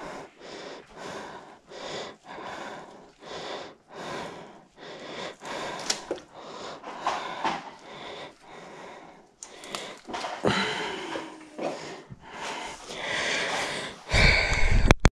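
Close breathing picked up by a shoulder-mounted microphone: even puffs about every 0.7 s. A loud low rustle comes near the end.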